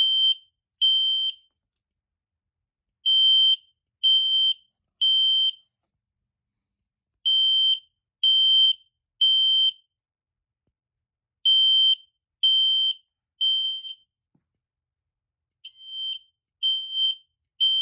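Gentex Commander 1 fire alarm horn sounding a code-3 temporal evacuation pattern. Three high-pitched blasts about a second apart, then a pause, repeating about every four seconds. The code 3 is a bit slower than on newer horns.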